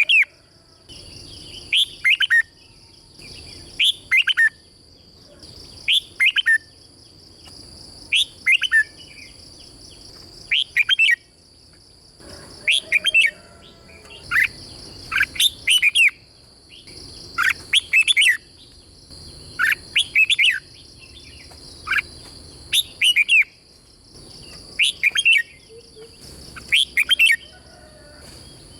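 Red-whiskered bulbul singing: short phrases of a few quick, downward-sliding whistled notes, repeated about every two seconds. A steady high-pitched hiss runs underneath.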